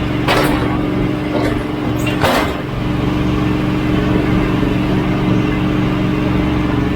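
Portable sawmill's engine running at a steady speed, with two brief rushing noises, one just after the start and one a little after two seconds.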